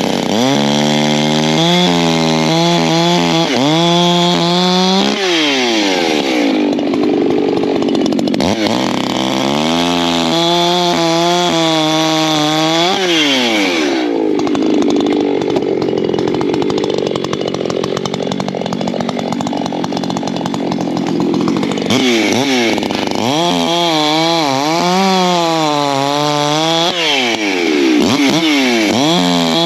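Ported Echo CS-620 two-stroke chainsaw bucking firewood, its engine revving up and down between cuts. It goes under load twice, its pitch sagging in the wood: a short cut a few seconds in, then a longer cut through the middle.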